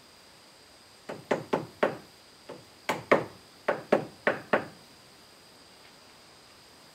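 A small hammer tapping small wooden blocks into place on a timber brace: about eleven sharp knocks in quick runs of two to four, over some three and a half seconds.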